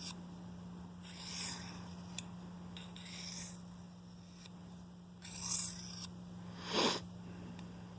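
Steel knife blade stroked across a fine diamond sharpening stone: four short scraping strokes, a second or two apart.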